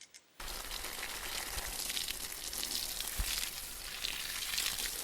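Water being poured or sprayed onto a planter's soil and flowers: a steady crackling hiss that starts abruptly about half a second in.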